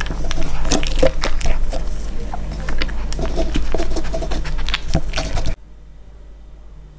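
Toy poodle eating dry kibble from a plastic bowl: close, rapid crunching and chewing with many irregular small clicks. It cuts off suddenly about five and a half seconds in.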